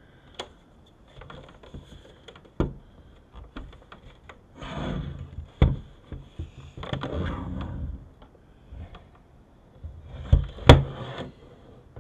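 Handling noise from a metal-cased video entertainment unit being turned over, set down and slid on a wooden tabletop: a series of sharp knocks with scraping and rustling between them, the loudest knocks near the end.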